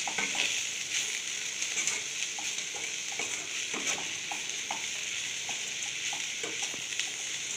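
Spatula stirring and scraping a drumstick-leaf stir-fry around a steel pan, with short scrapes every half second or so, over a steady sizzle from the frying.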